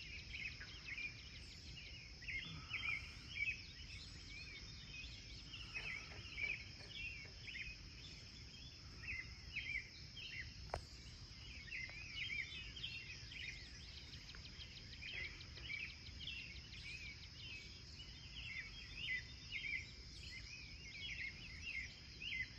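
Early-morning chorus of small birds chirping in quick, repeated short phrases over a steady high-pitched insect drone, with one sharp click about ten seconds in.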